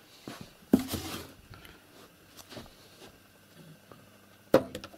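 Handling noises as something on a wooden computer desk is moved to cover the keyboard: a knock about a second in with a brief rustle, a few small clicks, and a sharper knock near the end.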